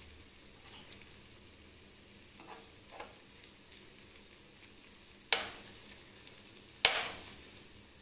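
Mutton keema kebabs and potato pieces sizzling in oil in a frying pan as a spoon turns them, with a few spoon taps against the pan, two of them sharp and loud, about five and seven seconds in.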